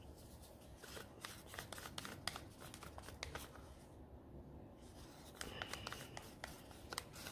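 Faint, irregular scraping and clicking of a thin wooden stick working the last resin out of a cup, with the crinkle of clear plastic gloves.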